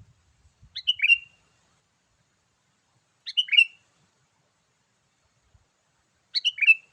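Sooty-headed bulbul call: the same short, bubbly phrase given three times, about three seconds apart, played as a lure call to draw in wild bulbuls.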